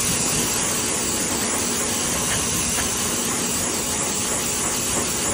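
Pet blower drying a wet puppy's fur: a steady, even rush of air and motor hiss.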